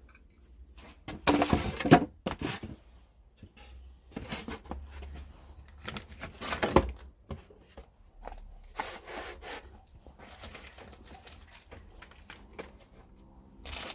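Parts of a scooter cylinder kit being handled and set down on a polystyrene box: scattered knocks, scrapes and rustles, loudest about two seconds in and again near seven seconds.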